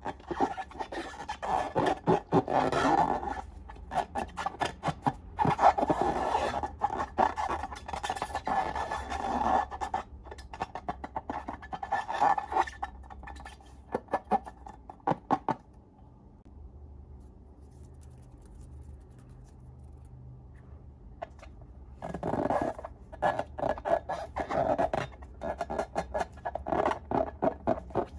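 Slime being squished and worked by hand, giving spells of dense crackly, clicking squelches with a quieter lull about two-thirds of the way through.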